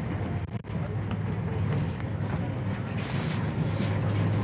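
Passenger ferry's engine running with a steady low drone, under a wash of wind and deck noise.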